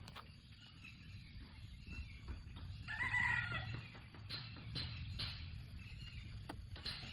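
A rooster crowing once, about three seconds in, over low background rumble and light rustling clicks.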